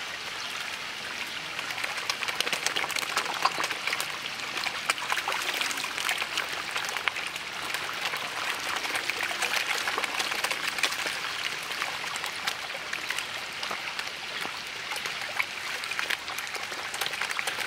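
A large shoal of carp in a feeding frenzy, thrashing and splashing at the pond surface as they compete for thrown food pellets: a continuous mass of splashing with many small sharp splashes.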